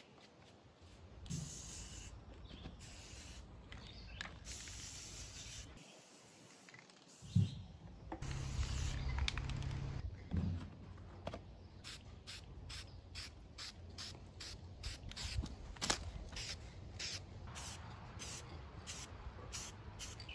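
Aerosol spray-paint can hissing in bursts: a few longer sprays, then a run of short quick spritzes, about two or three a second, through the second half.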